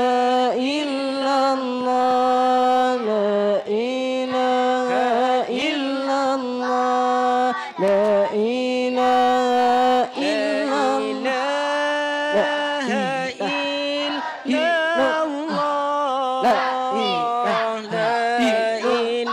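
Male voices chanting an Islamic dhikr without instruments, through microphones, in long drawn-out notes that slide from pitch to pitch.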